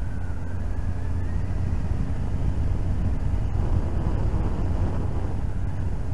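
Motorcycle riding along a town street: steady low wind rumble on the bike-mounted camera's microphone over the running engine. A faint whine rises in pitch in the first second or so.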